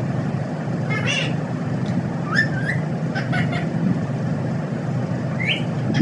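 Rose-ringed parakeet giving several short, high calls, some in quick pairs, over a steady low hum.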